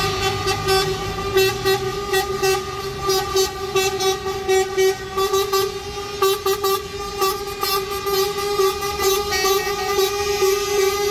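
Truck air horns sounding from a passing convoy of semi-tractor units: one horn held steadily throughout while others honk in many short blasts over it, with diesel engine rumble at the start.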